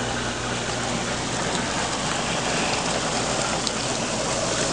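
Hot tub jets churning the water: a steady, even rushing and bubbling, with a low steady hum beneath.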